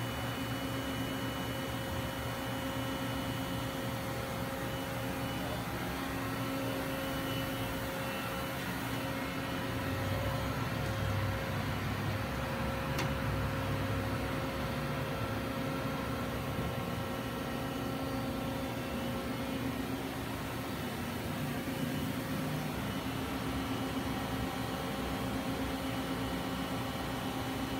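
Steady hum of running industrial machinery, with several held tones and a low rumble that swells a little partway through. A single faint click comes about thirteen seconds in.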